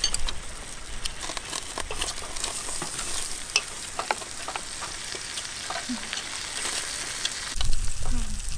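Beef slices sizzling and frying in a metal pan on a portable gas stove, with scattered clicks of metal tongs and chopsticks against the pan and bowls.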